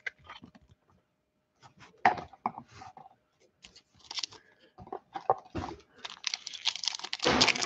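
Scattered light clicks and rustles of a trading card being slid into a clear plastic holder. About six seconds in, a dense crinkling and tearing begins as a Prizm trading-card pack wrapper is torn open.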